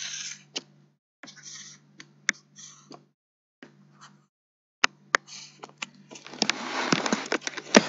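Stylus scratching across a touchscreen in short drawn strokes, with sharp taps and clicks between them; the scratching gets denser and longer near the end.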